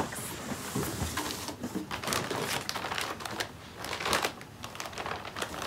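Plastic packaging crinkling and rustling in irregular bursts as wrapped medical supplies are handled and pulled out of a box.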